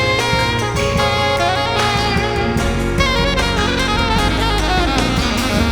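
A live band playing a song, with a melody line moving over bass and drums.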